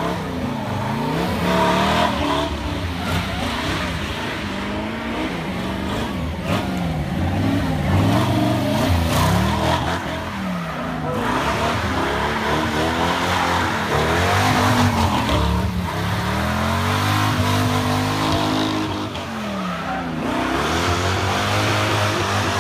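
Hot rod's engine revving up and down over and over while its rear tyres spin and squeal on asphalt in a smoky burnout.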